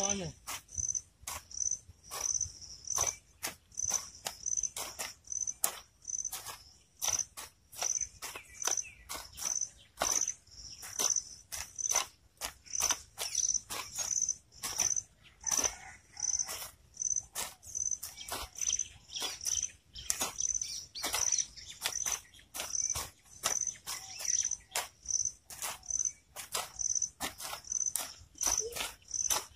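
Insects chirping in an even, high-pitched pulse, about two chirps a second, mixed with a scatter of irregular sharp knocks and clicks.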